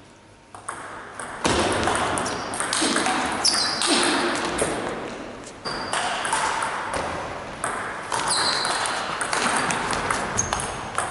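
Table tennis ball clicking as it bounces on the table and is struck by bats, in quick strings of bounces, some with a short ringing ping.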